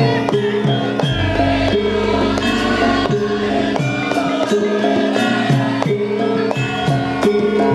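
Javanese gamelan music: metallophone notes struck in a steady repeating pattern over regular drum strokes, with a deep gong sounding about a second in.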